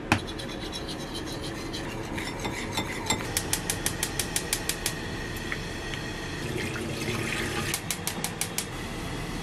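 Gas stove burner igniter clicking in two quick runs of about five clicks a second, as burners are lit under pans of oil. A single sharp knock comes right at the start.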